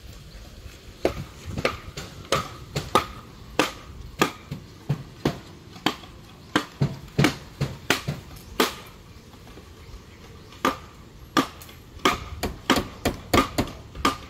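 Bamboo being chopped with a long hand blade: a run of sharp chopping strikes about two a second, a short pause, then a quicker run of strikes near the end.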